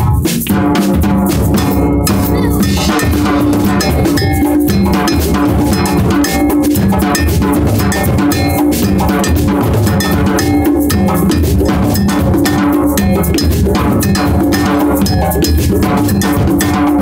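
Percussion ensemble playing together: drums and drum kit struck with sticks in a dense, steady rhythm, with low held tones underneath.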